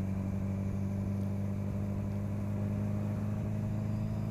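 Honda CB1000R's inline-four engine with an aftermarket sport exhaust, running at a steady engine speed while the bike is ridden, giving a low, even drone.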